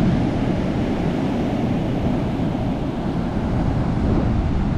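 Ocean surf breaking and washing up a sandy beach, a steady low rush, with wind buffeting the microphone.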